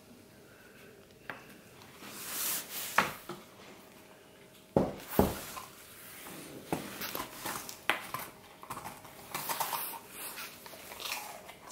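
A small crunchy snack is set down on a placemat with a few sharp knocks. A Staffordshire bull terrier puppy then picks it up and chews it, with scattered crisp crunches and mouth clicks through the second half.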